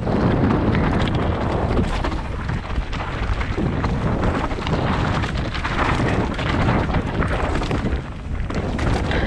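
Wind buffeting the microphone over a steady rumble and rattle of a bike running fast over rough, rocky trail, with many small knocks throughout.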